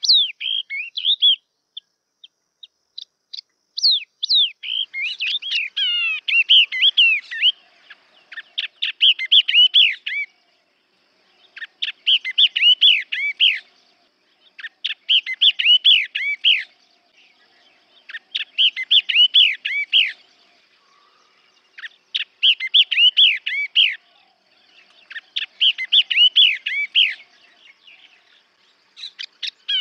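Yellow-eyed babbler song: phrases of rapid, rich warbling notes, each one to two and a half seconds long, repeated every three seconds or so with short pauses between. The opening seconds hold only a few scattered notes.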